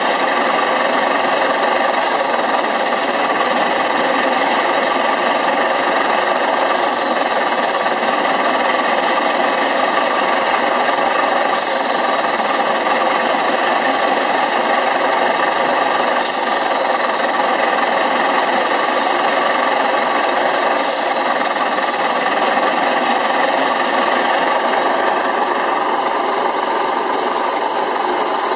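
Pence Bull Pup steam engine running steadily, its steam shovel swing engine making a fast, continuous mechanical clatter. A faint hiss recurs about every five seconds.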